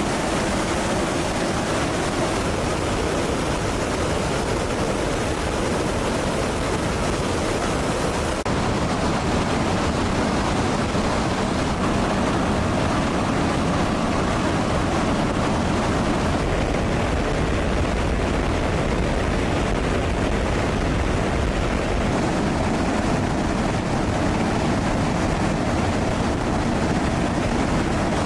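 Steady rushing noise of jet aircraft and airflow, with no distinct engine pitch. About eight seconds in it abruptly becomes duller and slightly louder.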